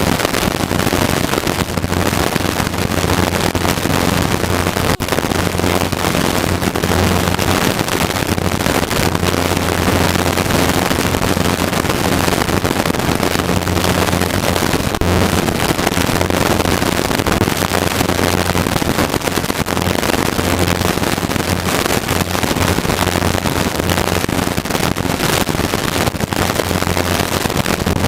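Helicopter in flight heard from inside the cockpit: steady engine and rotor noise with a constant low hum and a broad rushing hiss.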